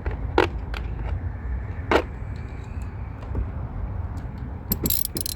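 Sharp metallic clicks and clinks of a 10 mm socket wrench working on a car battery's terminal clamp: a few single clicks, then a quick flurry of clicks near the end, over a steady low rumble.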